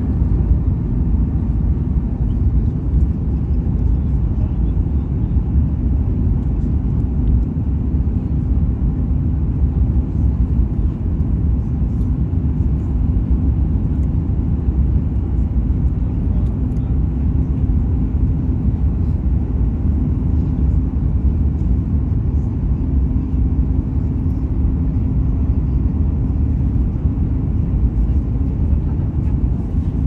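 Steady low rumble inside an airliner's passenger cabin in flight: jet engine and airflow noise coming through the fuselage, with a faint hum that comes and goes.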